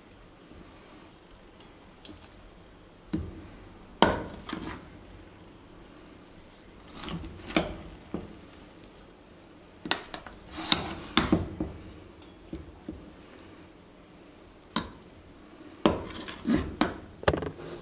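Steel ladle and spatula clinking and scraping against the rim and sides of an aluminium pressure cooker as cooked biryani rice is turned over from the bottom up. Scattered sharp clinks come in small clusters, with soft rustling of the rice between them.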